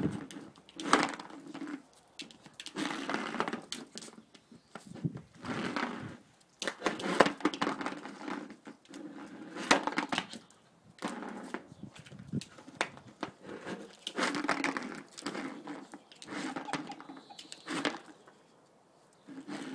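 A frustrated dog scratching and knocking at something, with sharp cracks and crackling in uneven bursts about every second or two.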